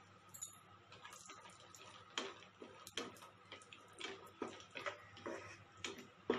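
Spatula stirring cashew nuts in a little hot ghee in a nonstick frying pan: faint, irregular clicks and scrapes as the nuts and spatula knock against the pan, more frequent from about two seconds in.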